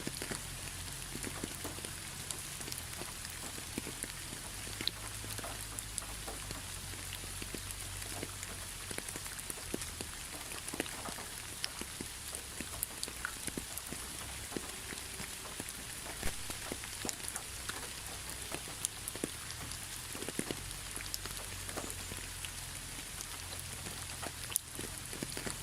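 Steady rain falling on a surface, with many separate drops ticking sharply over an even hiss. A low rumble underneath fades through the middle and returns near the end.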